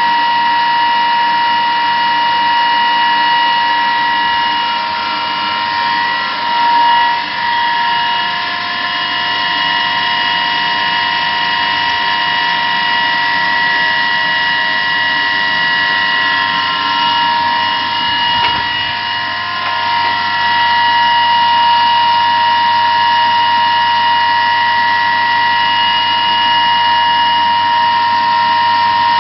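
An electric motor running steadily with a high-pitched whine, held at one pitch throughout.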